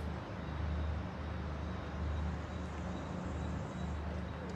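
A motor running with a steady low hum that swells and eases about once a second, with a faint high whine above it.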